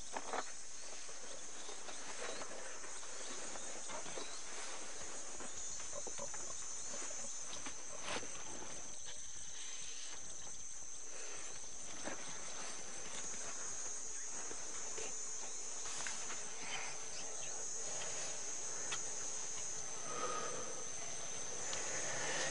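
Insects calling steadily in a continuous high-pitched buzz, with a few faint clicks.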